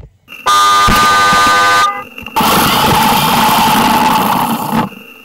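A loud horn blast starts about half a second in and holds for about a second and a half. Soon after it, a glitter-bomb bait package sprays its glitter out with a steady whirring hiss lasting a couple of seconds.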